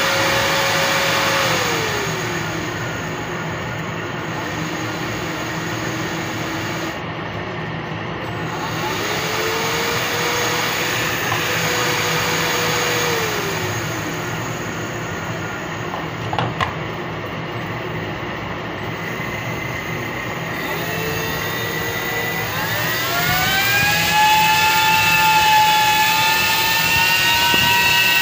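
Small 12-volt DC cooling fan of the CPU/UPS kind spinning on a bench supply: a rush of air with a motor whine. The whine drops and climbs several times as the fan slows and speeds up while its supply wires are made and broken. After about 23 s it rises to its highest pitch at full 12 volts and holds there, then begins to fall at the very end.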